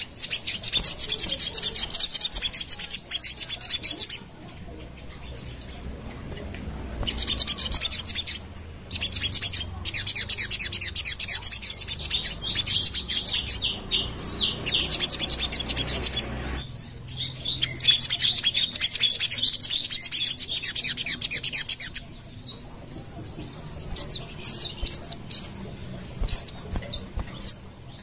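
A caged sogon sunbird singing: bursts of fast, high chattering trills several seconds long with short pauses between, giving way to scattered single chirps after about twenty seconds.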